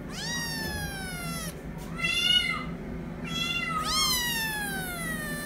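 Kitten meowing four times in a row. The first and last meows are long and fall in pitch, and the short one about two seconds in is the loudest.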